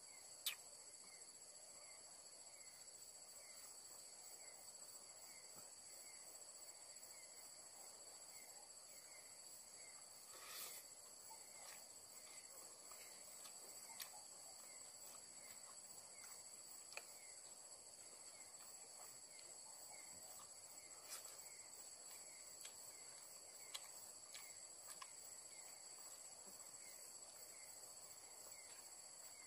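Faint night-time chorus of crickets and other insects: a steady high-pitched drone with a softer chirp repeating regularly beneath it. A few small sharp clicks come and go.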